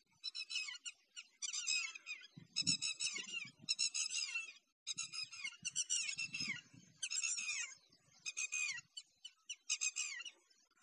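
Birds calling in short, squeaky chattering phrases, one about every second. Low muffled rustling comes in twice, a couple of seconds in and again around the middle.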